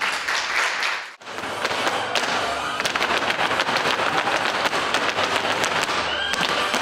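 Folklórico dancers' boots stamping a Jalisco-style zapateado on a hard studio floor: many fast, sharp heel and toe strikes, densely overlapping, with music under them.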